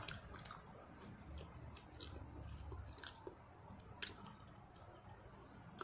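Faint chewing of fruit salad by someone wearing new braces, with a few light clicks of a metal spoon against a plastic cup.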